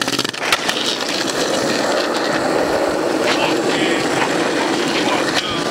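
Skateboard wheels rolling on rough asphalt: a steady rolling rumble, with a few sharp clacks of the board in the first half-second.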